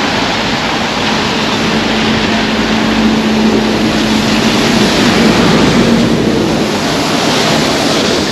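Traffic on a wet city street: tyres hiss on the wet road, and a city bus drives past close by, its engine humming steadily for several seconds in the middle.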